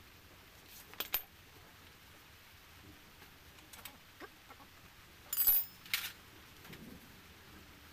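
Metal tools and parts clinking and tapping on an opened Yamaha Mio scooter engine: a few light clicks, the loudest a ringing metallic clink about five and a half seconds in, followed by another just after.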